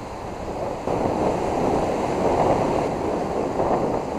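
Surf breaking and washing in over rough, choppy water, with wind on the microphone; the wash grows louder about a second in.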